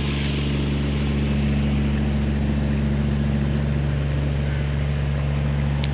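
Steady rush of water from a small park waterfall into a pond, with a steady low engine-like hum running underneath.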